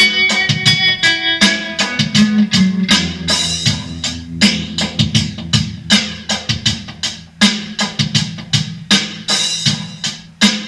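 Electric guitar playing bluesy lines over a drum backing track. The guitar notes thin out after the first few seconds, leaving mostly the steady drum beat.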